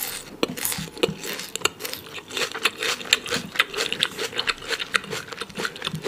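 Close-miked chewing of a forkful of bean sprouts: dense, irregular wet mouth clicks, smacks and crunches, several a second.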